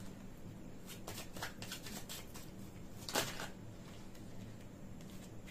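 Tarot cards being handled and laid out: a run of quick card flicks and snaps as the deck is worked and cards are placed down, the loudest snap about three seconds in.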